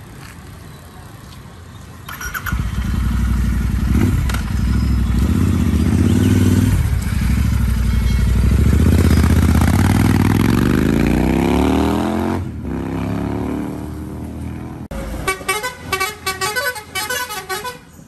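Royal Enfield Interceptor 650's 648 cc parallel-twin through a Moto Wings aftermarket exhaust, revved and then pulling away, its pitch rising steadily as it accelerates before it fades. In the last few seconds a vehicle horn honks in a quick pattern of several notes.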